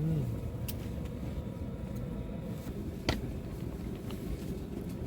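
Steady low rumble of wind buffeting a phone microphone, with a single sharp click about three seconds in.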